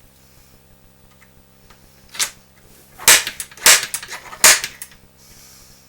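A hammer strikes a punch into a small block of scrap wood four times, marking a starter hole for drilling. The first tap, about two seconds in, is light; three sharp, loud strikes follow over about a second and a half.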